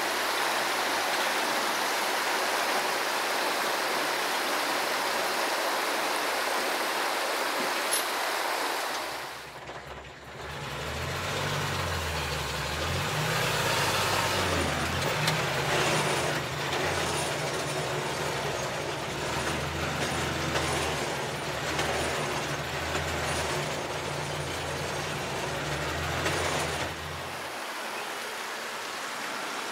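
Rushing river water. From about ten seconds in, the ZIL-164 truck's petrol straight-six engine runs under load as the truck drives, heard from inside the cab with the rumble rising and falling. Near the end the engine sound drops away and only the rushing water is left.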